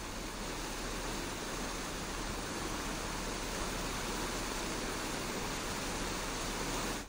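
Floodwater rushing through the breach in a washed-out dirt road: a steady noise of fast-flowing water that cuts off suddenly at the very end.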